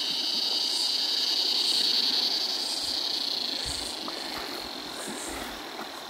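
Steady high-pitched drone of a cicada chorus, slowly fading, over the rushing and splashing of shallow creek water being waded through.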